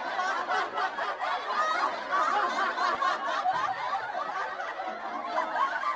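Sitcom audience laughter: many people laughing together in a steady wash.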